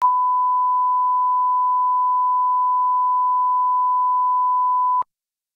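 Line-up test tone played with SMPTE colour bars: one steady, unwavering high beep that cuts off suddenly with a slight click about five seconds in.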